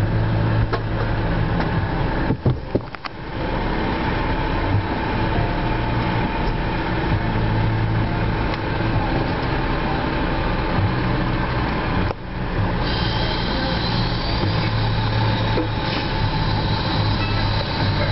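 Diesel engines of fire apparatus running steadily: a constant low hum under a wide, even noise, with short dips about two and a half seconds in and again near twelve seconds.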